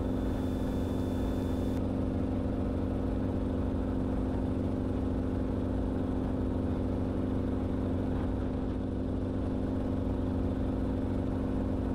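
Enstrom helicopter's engine and rotor drone heard from inside the cabin: a steady hum over a low rumble, holding level in cruise flight.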